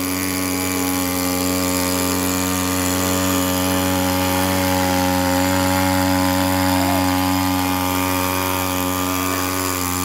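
Engine of a remote-controlled floating water pump running steadily under load as it drives a strong water jet through its hose, a constant even-pitched drone.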